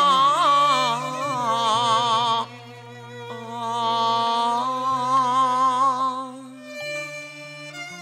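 Cantonese opera song with its traditional ensemble: a long note held with wide vibrato, then a second held note, before the music drops to a quieter instrumental passage near the end.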